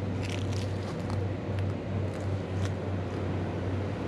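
An engine running steadily with a low hum, under an even hiss, with a few faint ticks in the first second.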